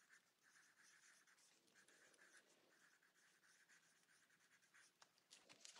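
Very faint scratching of a pen writing on a photograph in short strokes: an autograph being signed.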